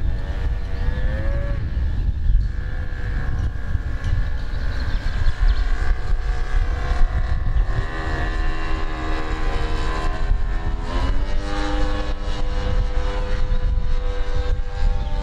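Gasoline engine and propeller of a giant-scale radio-controlled Piper J-3 Cub model plane in flight, a steady buzzing drone whose pitch drifts up and down as it passes and changes throttle, rising about eleven seconds in.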